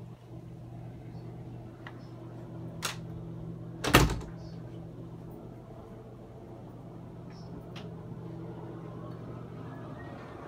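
Steady low hum of an indoor room with a few light clicks, and one loud knock about four seconds in.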